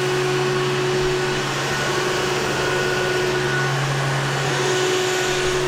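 Electric transfer pump running steadily with a constant hum and whine, pumping heating oil back into the tank.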